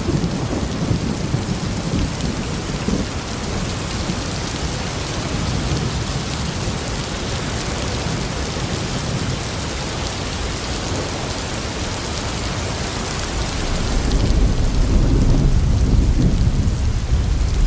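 Steady heavy rain with thunder rumbling low beneath it. A deeper, louder roll of thunder builds about three-quarters of the way through.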